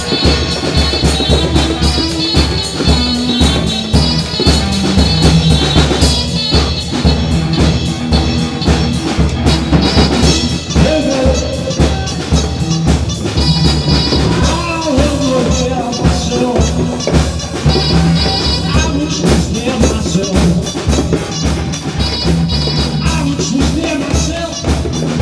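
Music with a steady drum-kit beat.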